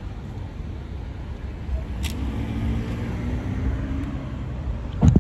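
Street traffic: a car goes by with a low engine hum in the middle, over a steady low rumble. A sharp knock comes near the end.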